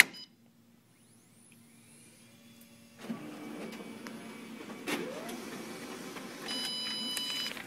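Xerox WorkCentre M128 copier printing a one-page report. After about three seconds of near silence its mechanism starts and runs steadily, with a click partway through and a high whine near the end.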